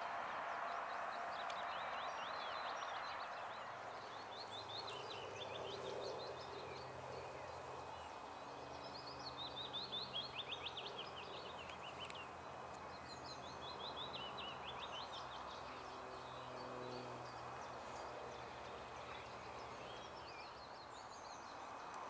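Small songbirds singing: a fast, descending trilled phrase repeated several times, each lasting a couple of seconds, over a steady background rush.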